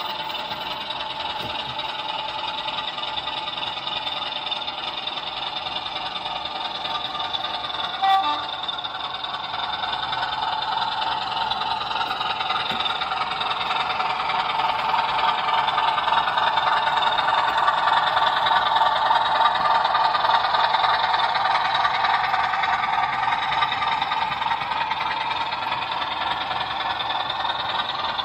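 Diesel engine sound from the sound decoder of an OO gauge model BR diesel locomotive, running steadily and thin with little bass. It grows louder about halfway through as the locomotive comes past, with a brief click about 8 seconds in.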